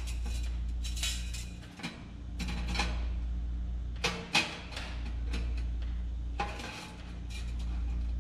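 Steel stove pipe sections clanking and scraping against the steel stove body as they are pushed in to nest inside it, with several sharp metal knocks over a steady low hum.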